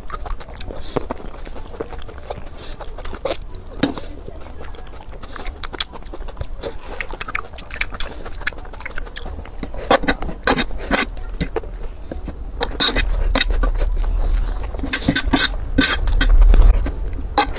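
Close-miked eating: a quick run of chewing and biting, with many short, sharp clicks and smacks that grow busier in the second half. A low rumble swells near the end.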